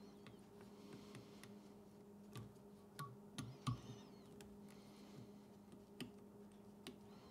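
Near silence: faint scattered ticks and clicks of tying thread being wrapped with a bobbin around a hook shank in a fly-tying vise, over a faint steady hum. A few slightly louder clicks come around the middle.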